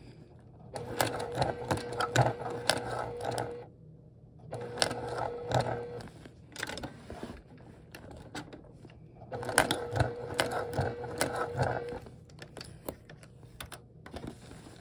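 Sewing machine stitching through a thick, bulky seam of vinyl and lining in three short runs a few seconds long, with pauses between them. A steady motor hum is heard under the rapid clatter of the needle.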